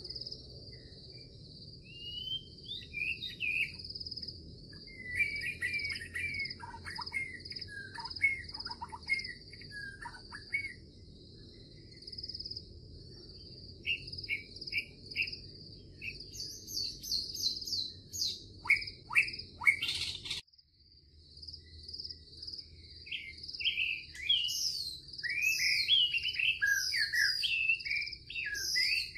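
Birds chirping and trilling in short phrases over a steady, high, insect-like buzz. The sound breaks off abruptly about two-thirds of the way through and then resumes, as a looped nature ambience does.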